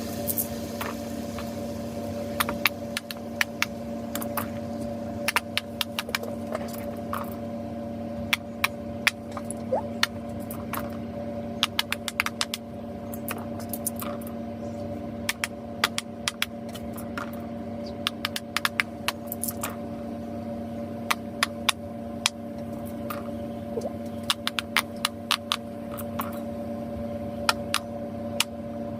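Fidget toys being clicked and popped by hand: many short, sharp clicks at an irregular pace over a steady hum.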